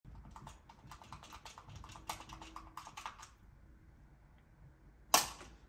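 Rapid clicking of a wired game controller's buttons being mashed, stopping about three seconds in. A single loud, sharp thump follows about five seconds in.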